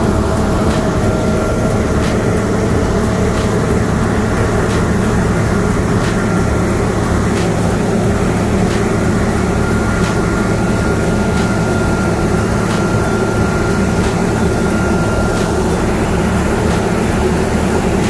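New Holland CR8.90 combine harvester running steadily at work cutting wheat, a deep, even machine drone with a faint high whine that comes and goes.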